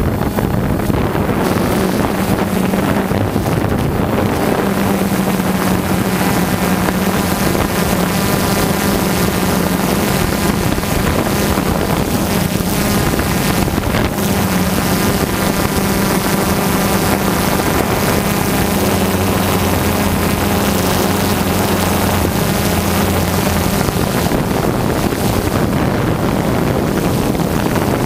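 Quadcopter drone's motors and propellers running in a steady buzzing hum, the pitch shifting slightly now and then as it manoeuvres, mixed with a rush of wind noise on the microphone.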